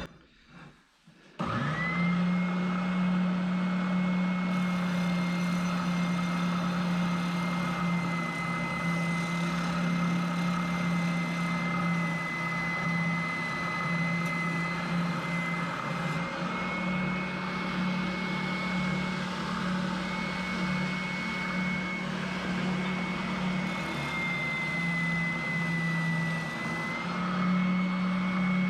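Handheld electric router starting up about a second in and running steadily with a high whine, cutting to clean up the edge of an aluminium plate. Its pitch wavers slightly as the bit takes load.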